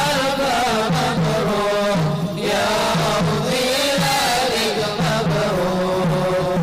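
Arabic congratulatory song sung by a male voice into a microphone, a long ornamented melody over a repeating low beat about twice a second.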